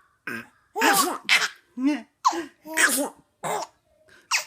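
A woman's imitation Donald Duck sneezes, several in quick succession, with a baby laughing between them.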